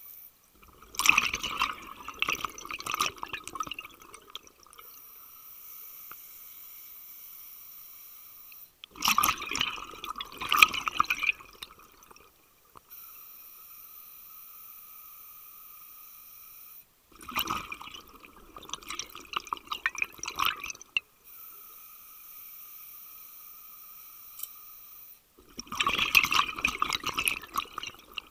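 Scuba regulator exhaust underwater: exhaled air bubbling out in four bursts about eight seconds apart, each lasting three to four seconds, in the rhythm of a diver's breathing. A faint steady whine runs between the bursts.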